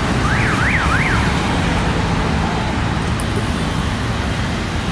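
Steady rumble of road traffic and engines. Near the start, a short electronic siren-like warble goes up and down three times in about a second.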